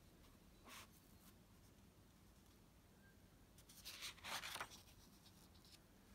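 A paper planner page being turned in a ring binder: a short paper rustle about four seconds in, after a fainter brush of paper under a second in.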